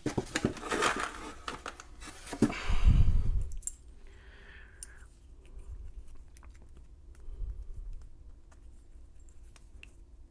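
Keys and a key ring being handled, rattling and clinking, with a louder rustle and thump about three seconds in. After that come only scattered faint clicks.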